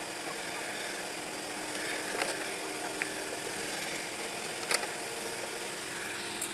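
Heavy-equipment engine running steadily, with three short knocks, the loudest about three-quarters of the way through.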